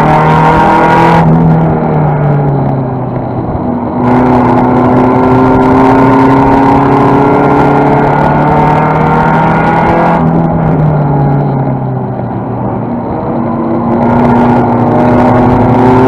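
Race-prepared Toyota Celica's 5S-FE four-cylinder engine running hard, heard from inside the cockpit. The driver lifts off about a second in and again about ten seconds in, the engine note dropping and quieting for a few seconds each time before full throttle comes back with a climbing pitch.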